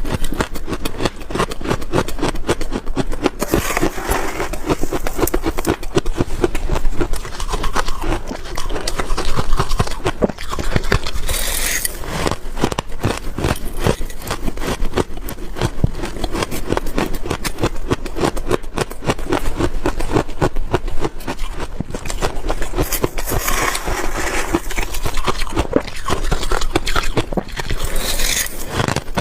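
Freezer frost being crunched and chewed close to the microphone: a dense, rapid crackling, swelling into louder hissy crunches a few times.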